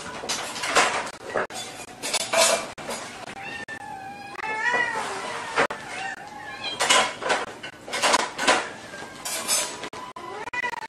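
Several kittens mewing over and over, with sharp clinks and scrapes of tableware mixed in among the calls.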